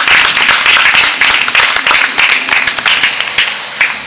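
A small group of people applauding by hand-clapping, the claps thinning out and dying away near the end.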